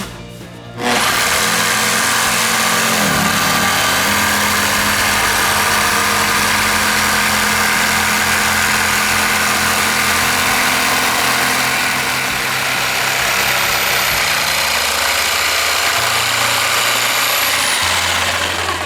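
Electric woodworking power tool running steadily at full speed, starting abruptly about a second in and stopping near the end.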